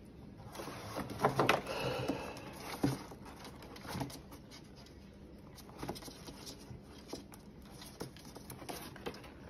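Small scissors snipping and hands rustling through nesting twine and fur, as twine is cut from squirrels' tangled tails: a run of small clicks and rustles, with a few louder, sharper sounds between about one and three seconds in.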